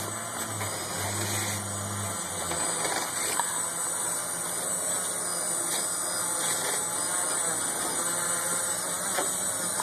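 Small multirotor drone hovering, its electric motors and propellers making a steady whirring buzz with a high whine over it.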